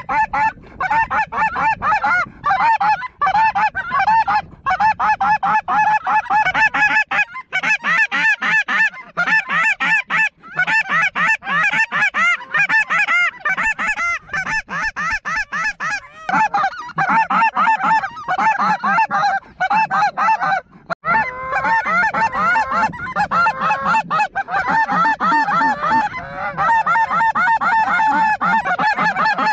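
Snow goose calls: a dense, nearly unbroken chorus of many overlapping high honks and yelps, with a few brief drop-outs.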